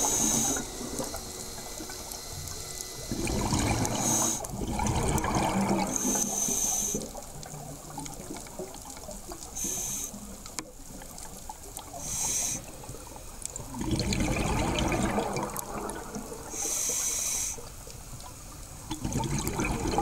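Underwater scuba breathing: short hissing inhalations through the regulator alternate with gurgling rushes of exhaled bubbles, repeating every few seconds.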